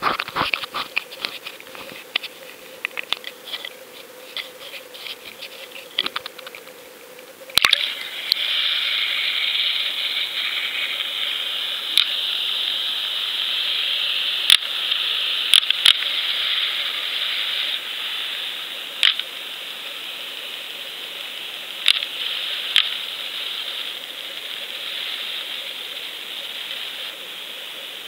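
GoFish underwater camera's own microphone: small handling ticks at first, then, a little over a quarter of the way in, a sharp knock and a switch to a steady muffled hiss of water heard through its waterproof housing as it sinks, broken by a few sharp knocks on the housing.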